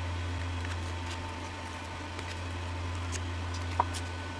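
Quiet handling of cardstock, with a few faint paper ticks and one small click near the end, over a steady low hum.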